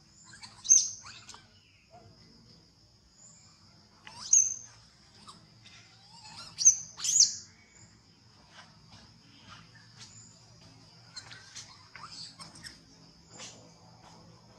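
Steady high drone of insects with a handful of short, sharp, high-pitched squeaks, the loudest about a second in, at about four seconds, and twice near seven seconds.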